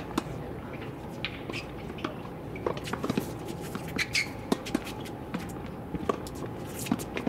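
Tennis balls struck by rackets and bouncing on a hard court: irregular short, sharp knocks, several of them in the second half, over a steady faint background hum.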